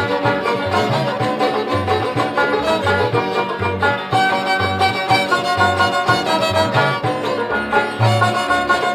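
Background music: an upbeat instrumental with fiddle-like strings over a steady bass beat.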